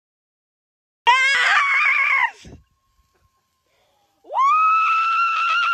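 A person screaming with excitement, twice: a high scream about a second in that lasts over a second, then a second long scream starting near the end.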